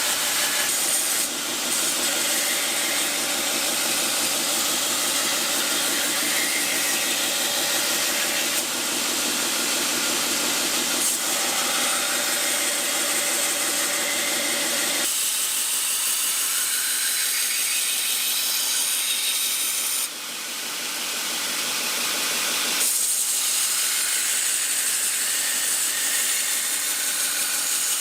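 Belt grinder with an 80-grit belt grinding a steel knife blade: a continuous, loud grinding hiss, broken briefly about a second in, about nine seconds in and about twenty seconds in as the blade comes off the belt, and thinning in its lower part about halfway through.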